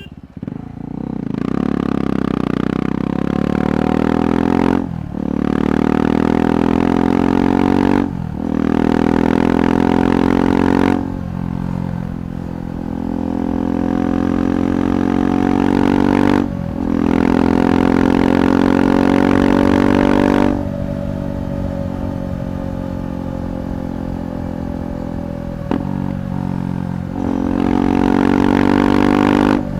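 KTM 390 Adventure Rally's single-cylinder engine through a Red Rooster performance exhaust, accelerating hard through the gears: the note rises and briefly drops at each upshift, four times in the first half. Near the middle it comes off the throttle and runs lower, falling slowly, then climbs again near the end.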